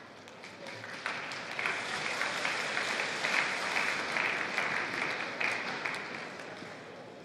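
Hall crowd applauding a won point, the clapping swelling about a second in and fading out near the end.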